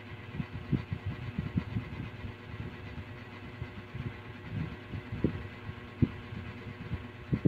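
Irregular low, muffled thumps, several a second and a few louder ones near the end, over a steady faint hum.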